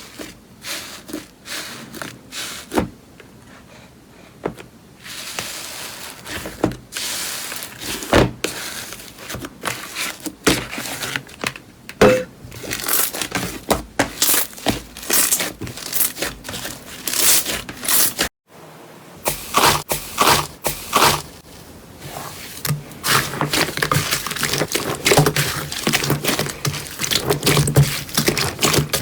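Slime being squeezed and worked by hand, giving a dense run of sticky clicks, pops and crackles. It breaks off briefly about two-thirds of the way through, then starts again.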